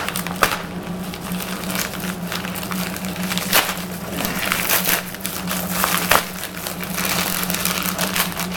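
Mailing package being cut and torn open by hand, with irregular crinkling, rustling and crackling of the packaging as it is struggled with. A steady low hum sits underneath.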